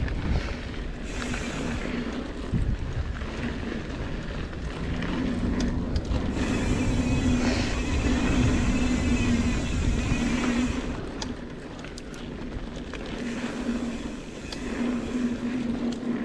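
Mountain bike riding fast down a dirt trail: tyres rolling over packed dirt and roots, the bike rattling over bumps, and wind buffeting the microphone. A steady buzzing hum comes and goes.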